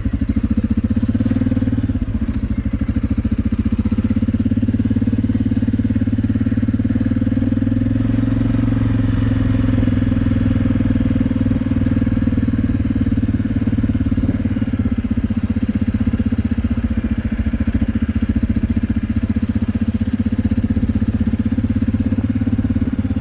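An engine running steadily at an even speed, with a low, constant pulsing hum.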